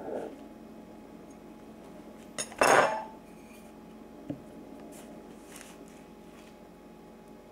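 Kitchenware clattering on a work surface: one short, loud clatter about two and a half seconds in, just after a small click, and a light single knock a couple of seconds later.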